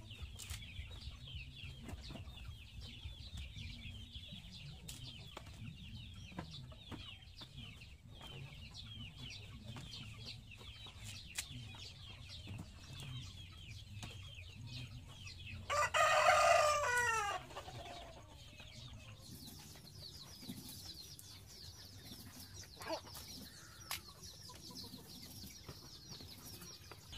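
A rooster crowing loudly once, about sixteen seconds in, the crow falling in pitch at its end, over chickens clucking faintly.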